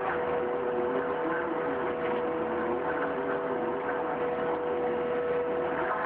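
Mustang skid-steer loader running steadily while working a Bobcat hydraulic auger in a dug hole. A steady whine sits over a slightly wavering engine note.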